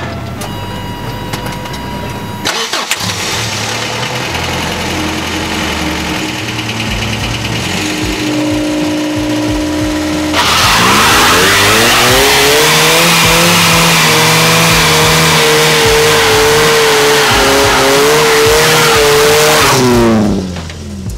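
Toyota 22R four-cylinder engine, breathing through an LCE header and ProFlow exhaust, starts a couple of seconds in and runs. About ten seconds in it revs up and holds high revs while the rear tyres spin in a burnout, with loud tyre squeal. The revs fall away near the end.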